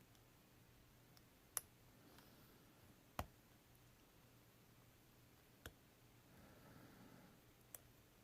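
Faint, sharp clicks of a lock pick working the pin stacks of an Assa Ruko 2 padlock during single-pin picking. There are four main clicks, irregularly spaced a second or two apart, over a faint low hum.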